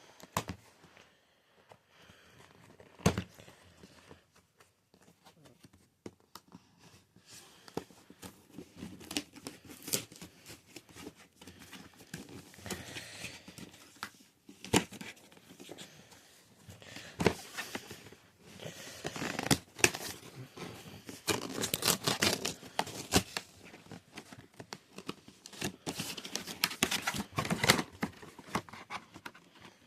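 Packaging of a 3D printing pen being opened by hand: tearing, crinkling and rustling, with scattered sharp clicks and knocks, sparse at first and busier in the second half.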